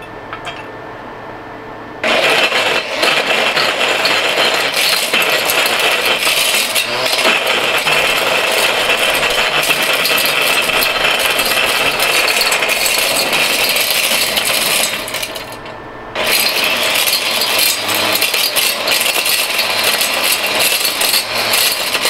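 Mighty Mill hammer-mill ore crusher, driven by an angle grinder, running loud and shredding an electronic connector of plastic, rubber and metal pins, with a dense rattle of pieces battering inside the chamber. It starts about two seconds in, stops briefly about two-thirds of the way through, then runs again.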